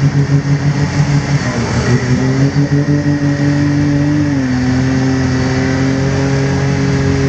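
Can-Am Maverick X3's turbocharged three-cylinder engine revving hard and held at high revs as the side-by-side tries to drive out of a swamp with one drive axle torn off. The pitch climbs about two seconds in, drops a little about halfway, then holds steady.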